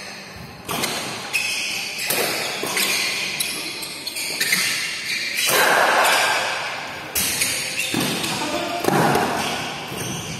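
Badminton rackets striking a shuttlecock in a fast doubles rally: more than ten sharp hits, about one every half to three-quarters of a second, ringing in a large hall.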